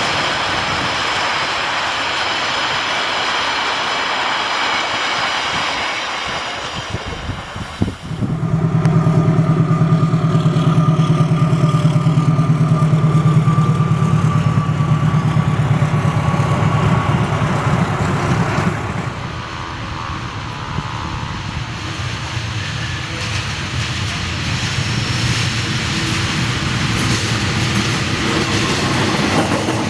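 Diesel-electric locomotive-hauled trains passing close by in a string of short clips: engine drone and wheels rolling on rail. The sound changes abruptly twice, with a louder, steady low engine drone from about eight seconds in until about two-thirds through.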